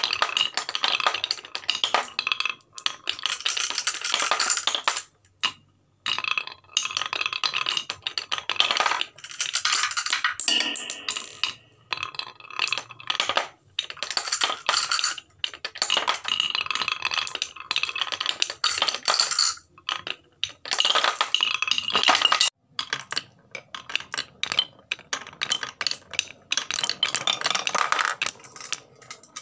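Glass marbles rolling and clattering down a wooden marble run: a rattling roll as a marble circles a grooved wooden bowl and drops through its centre hole, and clacking as marbles hit and run along wooden track pieces. The rolling comes in runs of a few seconds with short pauses between them.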